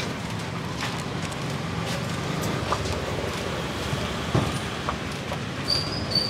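Steady noise of street traffic, with scattered light clicks and two short high chirps near the end.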